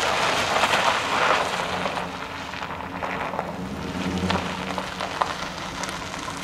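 Chevrolet pickup truck driving across a gravel yard: tyres crunching on the gravel, loudest as it passes in the first second or so, with the engine running low underneath, then slowing to a stop near the end.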